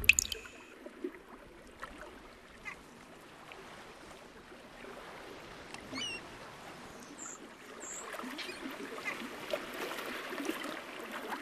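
Faint shoreline ambience: small waves lapping among stones at the water's edge, with a few short high chirps about halfway through. It grows slightly louder near the end.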